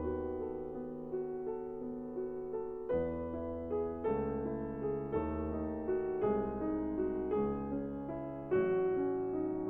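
Background music: piano or electric keyboard playing slow chords and melody notes, a new note or chord about every second.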